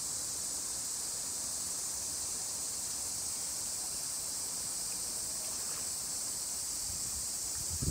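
Steady, even high-pitched hiss of outdoor background noise, with no calls or other distinct sounds.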